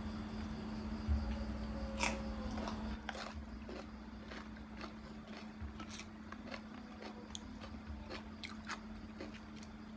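A person eating with close-up mouth sounds: chewing and biting, with scattered wet clicks and small crunches throughout. A steady low hum runs underneath.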